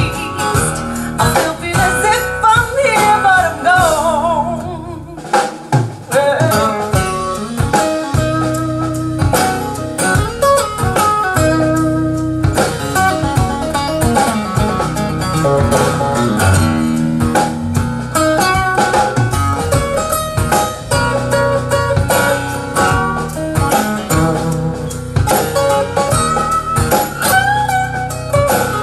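A blues-style song with guitar over bass and drums, played back through a hi-fi system's loudspeakers.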